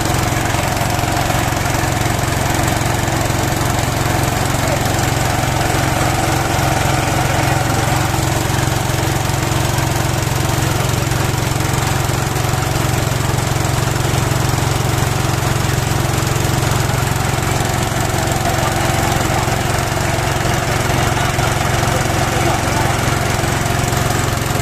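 Small pump engine running steadily at constant speed, driving a homemade water-well drilling rig through a Suzuki Carry gearbox.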